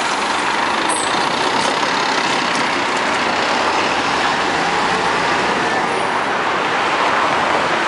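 Ikarus articulated city bus's diesel engine running steadily and loudly as the bus pulls away from the stop.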